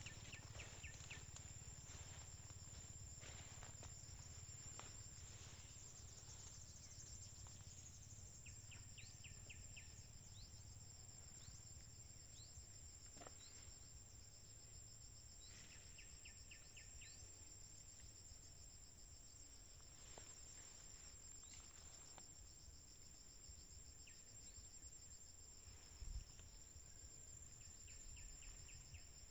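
Near silence with faint insects: a steady high drone, broken four times by short bursts of rapid chirping. A few faint ticks, and one brief low thump near the end.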